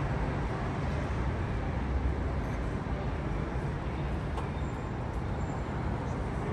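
Steady, even rumble of city traffic: a low hum with no single vehicle standing out.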